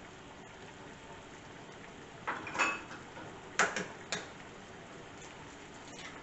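Tomato sauce simmering in a skillet with eggs in it, a steady bubbling hiss. Several sharp clinks and knocks of dishware come between about two and four seconds in, as a small glass bowl is handled and set down.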